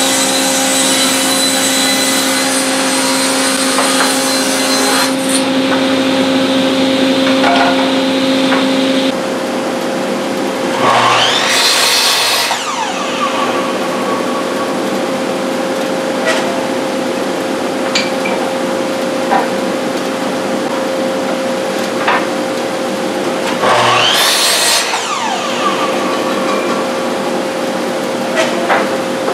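A table saw ripping oak boards: the cut ends about five seconds in and the saw runs on until about nine seconds. Then a miter saw makes two crosscuts through oak face-frame stock about twelve seconds apart, each a blade whine that rises and falls. Between the cuts come short clicks and knocks of the boards being set against the fence, over a steady hum.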